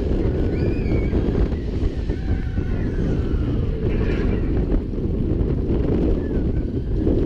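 Wind rushing over the microphone of a camera riding on the Slinky Dog Dash roller coaster train as it runs through the course at speed, a steady low buffeting rush.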